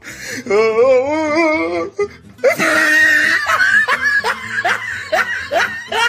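Person laughing: a wavering 'ha-ha-ha' for the first couple of seconds, then a run of short rising giggles about three a second.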